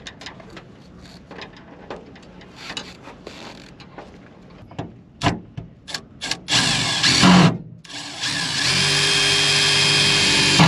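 Cordless drill driving screws: after several seconds of small knocks and clicks of handling, the drill runs in a short burst with shifting pitch, then again as a steady whine for about two and a half seconds near the end.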